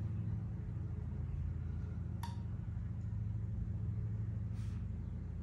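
Steady low background hum, with one light click about two seconds in and a brief soft scrape near the end: small handling noises from working a rubber shore-power plug boot with a cutting tool.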